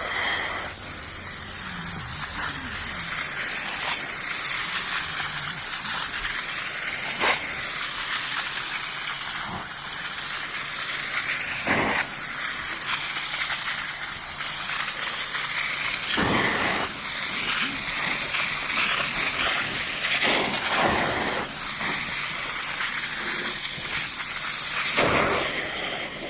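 Upholstery cleaning wand spraying and vacuuming fabric cushions: a steady hiss of suction and spray, with a brief surge every few seconds as the tool is pushed over the fabric.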